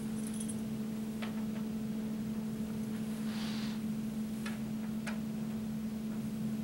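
Steady low electrical hum, with a few light clicks as small metal angle brackets are picked up and set down on a shelf panel.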